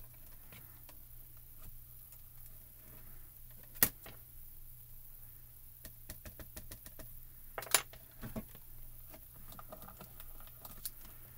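Tabletop handling clicks: two sharp clacks, about four seconds in and near eight seconds, with lighter ticks in between. This is a MISTI stamping platform's hinged acrylic lid and clear stamps being handled.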